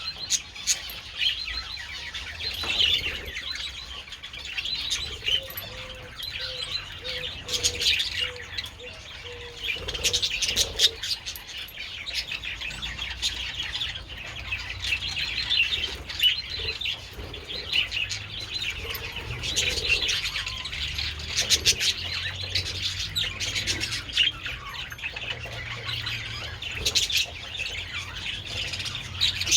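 A flock of budgerigars chattering and warbling continuously, with occasional short bursts of sharp clicks.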